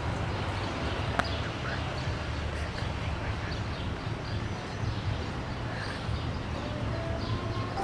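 Outdoor street ambience: a steady low background rumble with a few faint short chirps and a sharp click about a second in.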